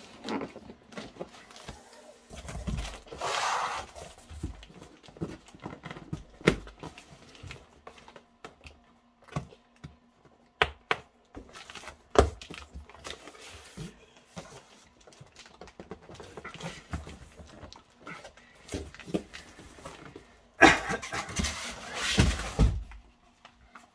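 A large corrugated cardboard shipping box being handled: rustling, creasing and flapping cardboard with scattered knocks and clicks. Near the end comes a louder rough stretch of a couple of seconds as the box is shoved aside across the floor.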